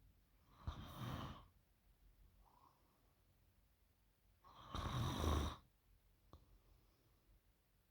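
A woman snoring deeply in her sleep: two long snores about four seconds apart, each lasting about a second, with quiet breathing between them.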